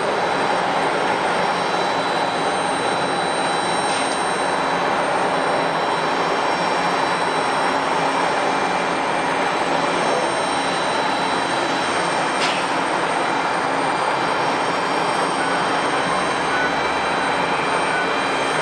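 Jet airliner engines running steadily: an even, unchanging noise with thin, constant high-pitched tones over it.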